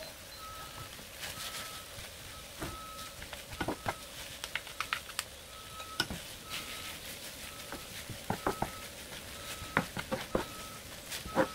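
Kimchi, sliced sausage and cooked rice sizzling faintly in a nonstick frying pan as a wooden spatula and spoon stir them. Irregular clicks and scrapes of the wooden utensils against the pan come in clusters, the loudest near the end.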